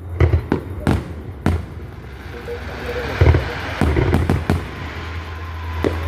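Fireworks going off: a string of sharp bangs, several close together in the first second and a half and more later, with a hissing crackle through the middle.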